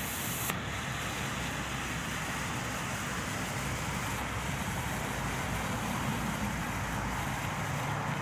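Steady hiss of a burning coloured smoke ball, with wind rumbling on the microphone; a sharper, higher hiss cuts off about half a second in.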